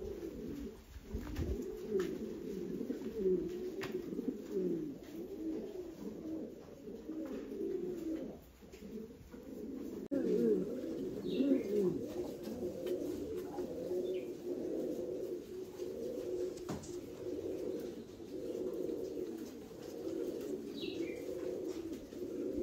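Several Norwich Cropper pouter pigeons cooing, their low rolling coos overlapping without pause. A faint high chirp is heard about halfway and again near the end.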